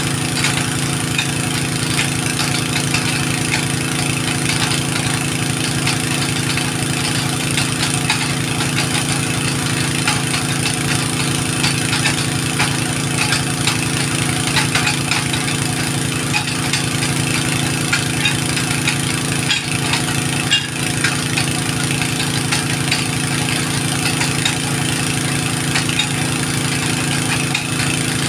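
A motor running steadily, holding one pitch without revving.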